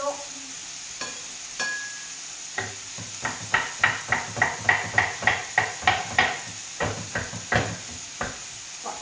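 Kitchen knife chopping blanched broccoli on a wooden cutting board: a quick run of knocks, about three a second, loudest in the middle. A frying pan sizzles steadily underneath.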